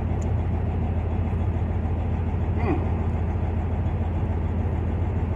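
Steady low drone of a semi-truck idling, heard from inside its sleeper cab.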